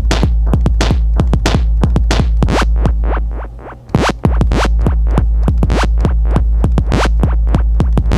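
Electronic drum and texture samples triggered in quick succession from iMPC Pro drum pads, about four or five hits a second, over a sustained low bass drone. The drone fades out about three and a half seconds in and comes back half a second later.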